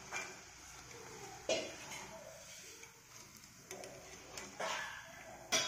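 Urad dal vadas sizzling in hot oil with a steady hiss while a wire skimmer lifts them out, clinking and scraping against the metal pan about six times.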